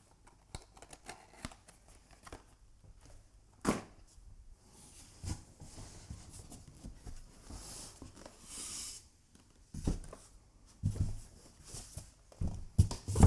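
Packaging of a boxed keyboard being handled: rustling and sliding with scattered small knocks, one sharp knock about four seconds in, and several low thumps in the last few seconds.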